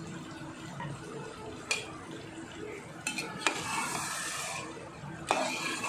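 A metal slotted spoon stirring diced potatoes in a masala gravy in a metal pot, the masala sizzling with about half a cup of water just added. A few sharp clinks of the spoon against the pot, with the hiss louder in the middle.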